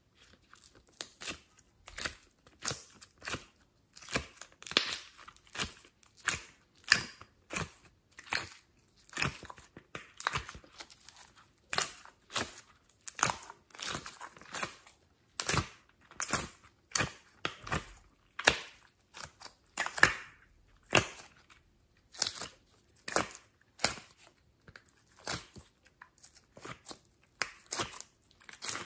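Slime being squeezed, pulled from a plastic heart-shaped mould and kneaded by hand, giving a steady series of short squishing pops and crackles, one or two a second.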